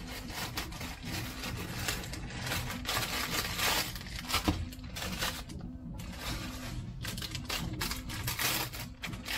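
Plastic packaging being handled and opened: a run of irregular crinkles, crackles and small clicks.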